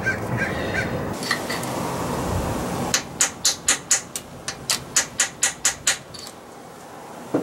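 A hammer tapping a block heater into its hole in a 4BT Cummins diesel engine block, driving it in to seat it. It strikes about a dozen sharp metal taps at roughly four a second, starting a few seconds in.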